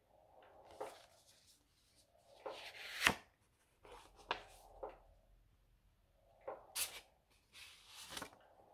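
Paper handling: an envelope rustling and being opened, and a stiff postcard sliding out of it, in short scraping bursts, with one sharp paper crackle about three seconds in.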